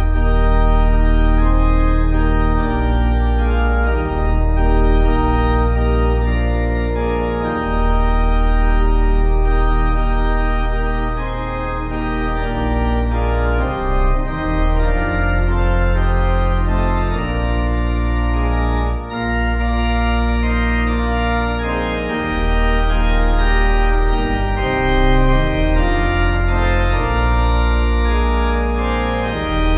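Organ music: slow, sustained chords over long held bass notes that change every few seconds.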